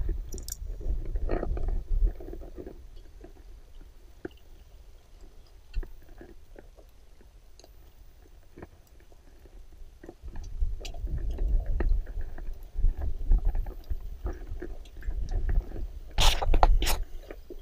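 A small wood-burning camp stove being lit with a lighter: scattered clicks and crunchy handling noises over a low, gusty rumble of wind on the microphone. Near the end come two louder sharp snaps.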